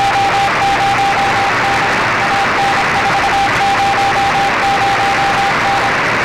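Morse code (CW) signal on the 20-metre amateur band heard through a shortwave receiver: a single steady tone keyed on and off in dots and dashes over loud, even band hiss. The keying stops shortly before the end, leaving only the hiss.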